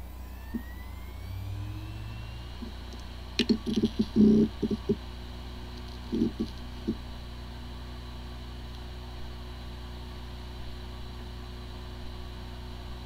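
A 3.5-inch hard drive powering up. The spindle motor's whine rises over the first few seconds, then a cluster of head clicks and knocks comes about three and a half seconds in, with a few more a couple of seconds later. After that the platters spin on with a steady hum. It sounds like a drive that spins nicely, the symptom of disk firmware corruption, in which the computer still cannot see the drive.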